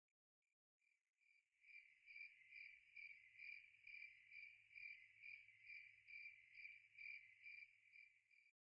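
Faint cricket chirping, a steady pulse a little over twice a second, over a faint low hum; it stops shortly before the end.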